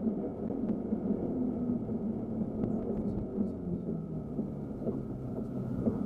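BMW M5 F10's twin-turbo V8 heard from inside the cabin during a wet track lap. The engine note falls away over a couple of seconds as the car slows into a corner, then picks up again near the end.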